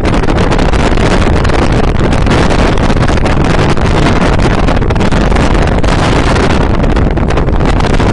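Wind rushing over the microphone on a moving boat, a loud steady roar, with the boat's engine and water noise mixed in.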